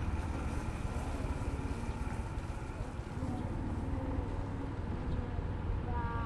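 Steady rumble of a moving vehicle's engine and tyres on the road, heard from on board, with a low buffeting of air.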